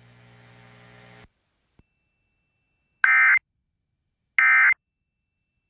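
Emergency Alert System SAME end-of-message data bursts: short, identical buzzing digital tones, two of them about a second and a half apart in the second half, with a third starting right at the end. They mark the close of an alert message.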